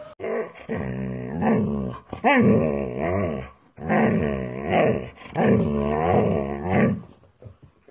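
A dog vocalizing in long, wavering howl-like 'talking' calls, about three drawn-out stretches whose pitch slides up and down, with short breaks between them, stopping shortly before the end.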